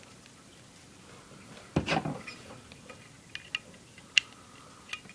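Small metal parts of a Zippo lighter handled by hand: a short clatter of clicks about two seconds in, then a few single light clicks.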